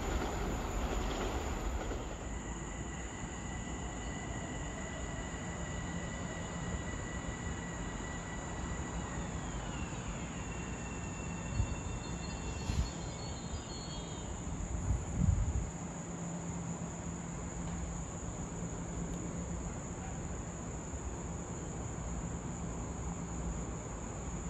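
A Metro-North commuter train's steady whine, which slides down in pitch and fades about ten seconds in. A few dull low thumps follow, over a steady chorus of insects.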